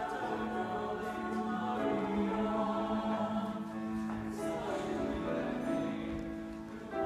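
Rehearsal music playing for the dance, with long held notes and chords.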